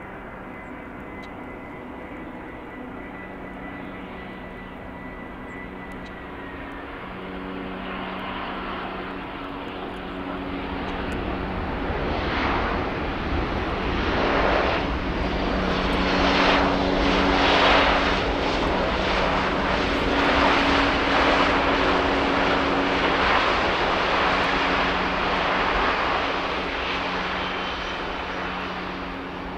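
Air Canada Airbus A320 jet engines on landing rollout, just after touchdown. The engine noise builds to a loud peak through the middle and eases off near the end.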